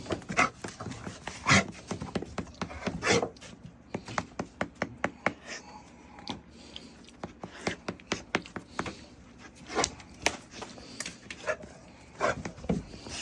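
A dog panting and sniffing, with many light clicks and taps throughout.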